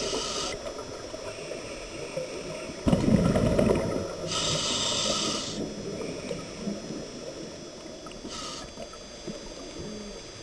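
Scuba diver breathing through a regulator underwater: short hissing inhalations near the start, about four seconds in and near the end, with a burst of low bubbling exhalation about three seconds in, over a steady muffled underwater background.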